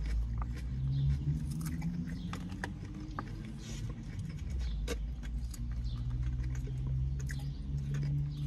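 Small clicks and rattles of a plastic fork and salad container, with chewing, over the steady low hum of the car cabin.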